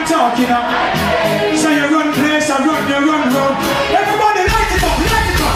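Dancehall music with a singing voice over a beat; a heavy bass line drops in about four and a half seconds in.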